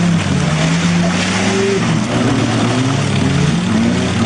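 Off-road 4x4's engine running loud and under load, its revs wavering up and down, as the vehicle sits bogged in deep mud.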